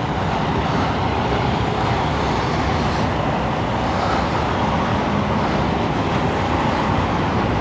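Steady wind noise on the microphone mixed with the rattle of a bicycle rolling over rough, cracked concrete.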